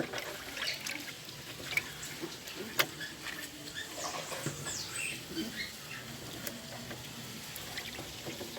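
Wet dog being washed: water dripping and pattering, with scattered short high squeaks and a sharp click about three seconds in.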